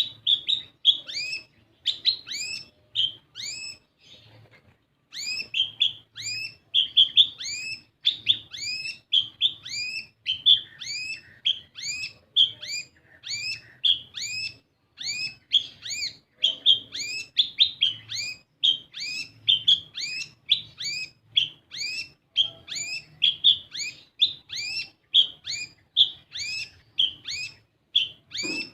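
A kolibri ninja sunbird giving a fast run of short, high, upward-sweeping chirps, about two to three a second, with a brief pause about four seconds in. It is a lure call of the kind played to get young birds of this species to sing.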